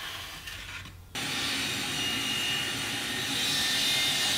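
Power mitre saw motor running with a steady high whine, starting abruptly about a second in.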